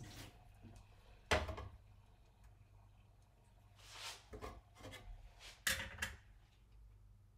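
A few separate knocks and clinks of a small espresso cup and a glass electric kettle being handled on a kitchen counter. The loudest come about a second in and again near six seconds.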